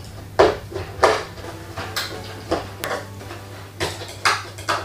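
Sharp plastic clicks and knocks, about nine in irregular succession, as a battery pack is pushed into a toy foam-dart blaster's battery compartment and the plastic cover is fitted back on.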